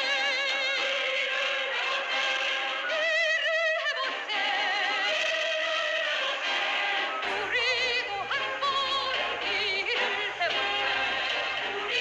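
Music with a singing voice holding long notes with wide vibrato over an accompaniment; a low, steady bass note comes in about seven seconds in.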